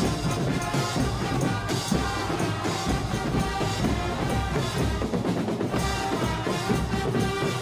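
A fanfare corps of trumpets and drums playing lively marching music.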